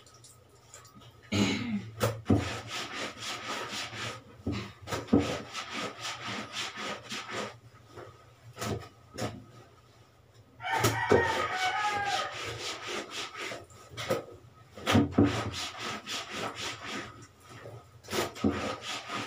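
Hand scrub brush scrubbing wet, soapy clothes in quick, repeated rasping strokes, with a few short pauses.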